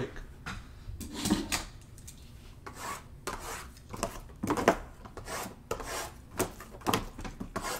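Sealed cardboard trading-card boxes being handled and slid against one another on a tabletop: a run of irregular short scraping and rubbing sounds.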